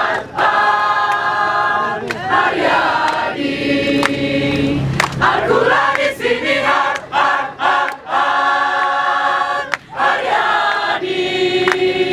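A large amateur choir of men's and women's voices singing an Indonesian song together, in phrases of long held notes with short breaks between them.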